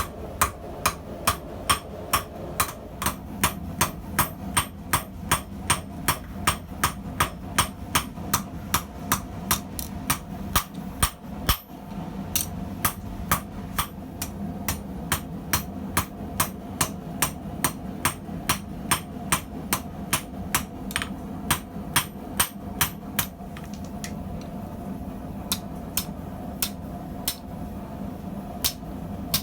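Hand-hammer blows on hot steel over an anvil during forging, about two a second. The run breaks briefly near the middle, goes on, and thins to a few scattered strikes near the end, over a steady low hum.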